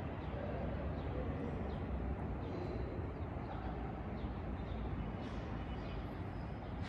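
Outdoor background sound: a steady low rumble with a few faint, short high chirps.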